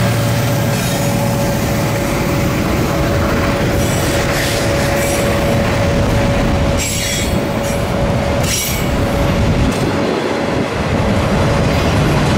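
Cars of a manifest freight train rolling past, with a steady high wheel squeal that fades out about nine seconds in, and a few sharp clanks from the wheels and couplers.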